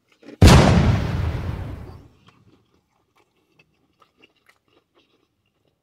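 A sudden loud noisy burst about half a second in, fading away over about a second and a half, as a big bite is taken from a crispy fried chicken sandwich; after it, faint quiet chewing.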